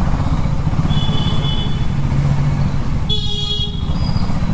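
KTM Duke 390's single-cylinder engine running steadily at low speed. About three seconds in, a horn honks once for under a second.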